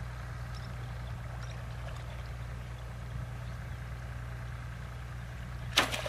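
A steady low engine-like hum, then a sudden loud splash of shallow water a little before the end.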